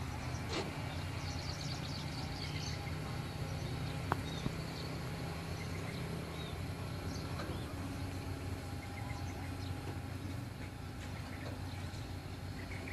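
Outdoor ambience: a steady low mechanical hum, like a distant engine, with scattered high bird-like chirps in the first couple of seconds and a single click about four seconds in.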